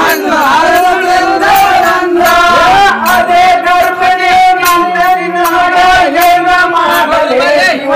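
Male voices singing a Kannada Muharram folk song (Mohurram pada) together, with long held, wavering notes and sharp regular beats.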